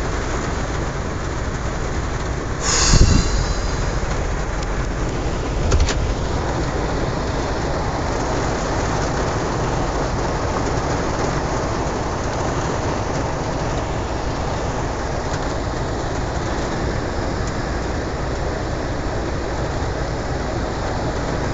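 Heavy rain pouring steadily on a GMC truck's roof and windshield, heard from inside the cab, with one loud crack and low rumble about three seconds in and a smaller knock a few seconds later.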